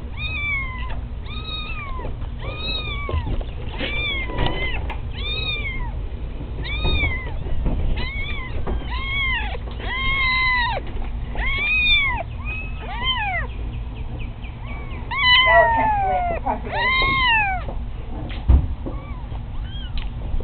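Kittens meowing loudly and over and over, each call rising and falling in pitch, about one a second. About fifteen seconds in comes a louder, rougher call that falls in pitch, and a single sharp thump follows shortly before the end.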